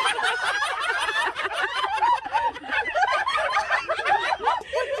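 Several people laughing at once, their voices overlapping continuously.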